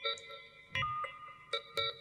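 Electronic music: bell-like chime tones struck about four times, each note ringing on, with a low thud under the second strike.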